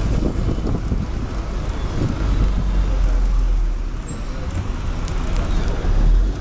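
City bus's diesel engine running with a steady deep rumble amid street traffic noise, with people talking.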